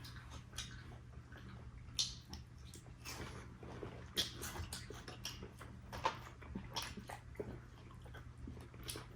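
Faint eating sounds: irregular wet clicks and smacks of chewing and mouth noises, over a steady low hum.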